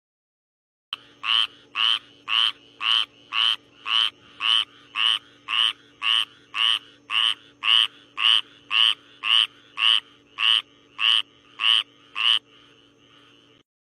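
A frog croaking in a steady series of about twenty short calls, roughly two a second, over a faint steady hum.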